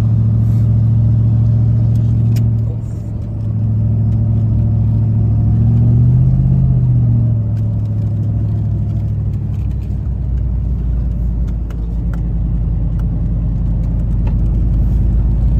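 Pickup truck engine and tyre rumble heard from inside the cab while driving in four-wheel drive on an icy gravel road. The engine hum rises in pitch briefly about six seconds in and settles, and a deeper low road rumble takes over in the second half.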